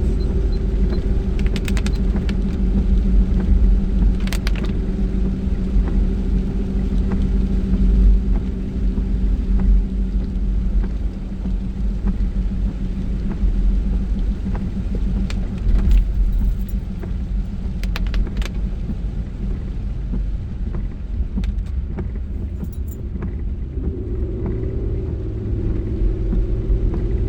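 Car cabin noise while driving: steady low engine and road rumble, the engine note dropping away about a third of the way in and rising again near the end. A few short clicks or rattles sound now and then.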